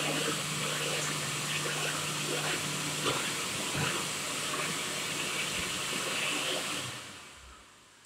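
Chrome push-button hand dryer blowing a steady, loud rush of air. About seven seconds in it switches off and the airflow dies away.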